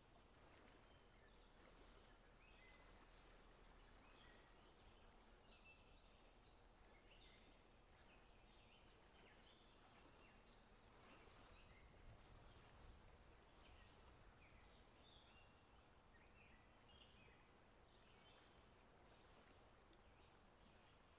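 Faint outdoor ambience of small birds chirping, many short high calls scattered throughout, over a low steady rumble.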